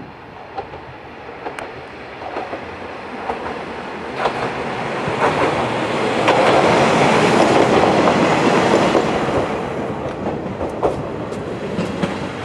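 Kanto Railway KiHa 532 single-car diesel railcar approaching and passing close by, its engine and wheels on the rails rising to a peak around the middle and then fading as it runs away. Sharp clicks of the wheels over rail joints sound through the pass.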